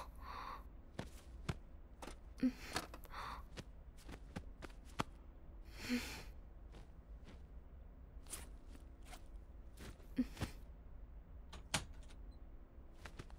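A woman's soft breaths and sighs, several short ones spread through, with scattered small knocks and clicks of handling and movement over a low steady hum.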